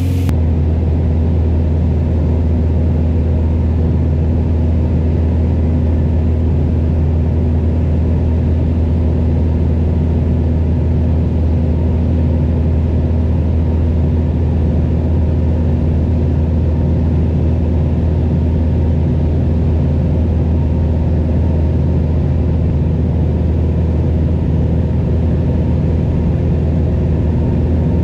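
Beechcraft Bonanza V35's six-cylinder piston engine and propeller droning steadily in cruise, heard inside the cabin as a loud, even low hum.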